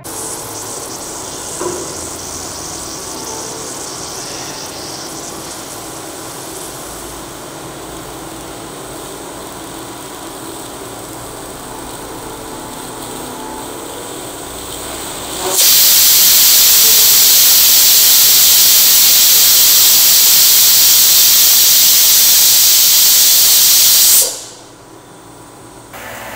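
Stovetop pressure cooker hissing steadily with escaping steam. About fifteen seconds in, it lets out a loud whistle, a rush of steam that lasts about nine seconds before dying away: the cooker has reached full pressure, one of the whistles by which the mutton's cooking is counted.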